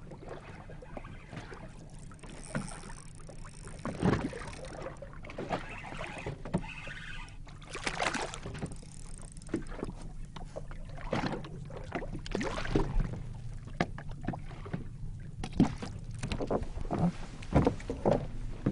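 Water lapping and slapping irregularly against the hull of a small drifting fishing boat, over a low steady background rumble.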